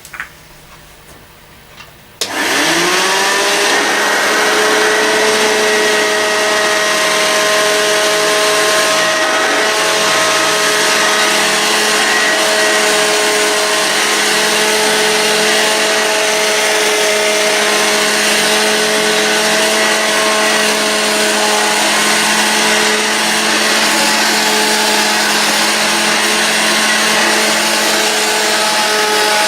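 A 1958 Hoover Junior 1334 upright vacuum cleaner, still on its original motor, switched on about two seconds in. Its whine rises as the motor spins up, then it runs steadily with a loud whine over a rushing hiss.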